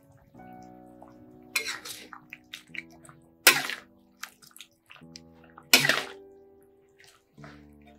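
Metal spatula scraping and clattering against a wok while stirring octopus in its black-ink sauce: three short, loud scrapes about two seconds apart, plus a few lighter touches. Background music with held notes plays throughout.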